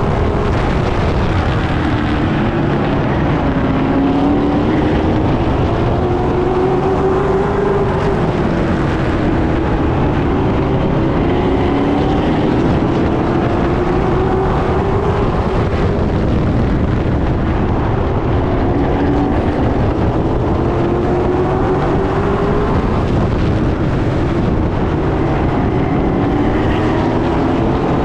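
Late model stock cars racing on a short oval, their V8 engines running hard. Their pitch keeps rising and falling as the cars accelerate down the straights and lift for the turns.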